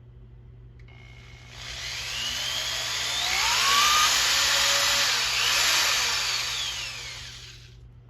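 Handheld electric drill boring an angled hole. It starts about a second and a half in, and its pitch rises and falls as the trigger is worked and the bit cuts. It stops shortly before the end.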